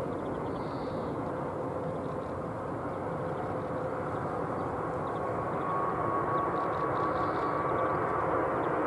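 Jet airliner engines at an airfield: a steady rushing noise with a faint steady whine, growing a little louder about six seconds in.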